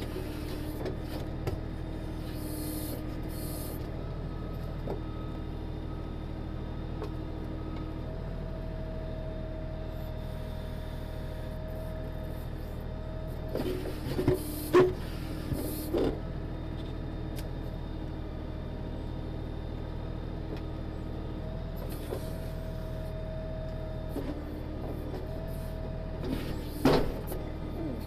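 Kioti DK6010 tractor's diesel engine running steadily while it drives the KB2485 backhoe, with a hydraulic whine that comes and goes as the bucket is worked. A few sharp knocks of the steel bucket striking rock and roots, halfway through and again near the end.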